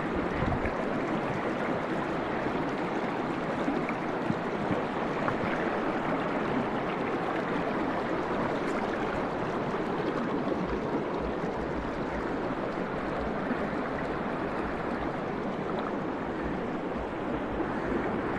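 Steady rush of a flowing stream, an even noise that holds the same level throughout.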